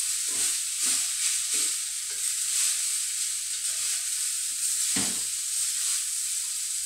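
Fried rice sizzling in oil in a stainless steel wok, with a spatula scraping and stirring through it in irregular strokes over a steady hiss. One louder knock about five seconds in.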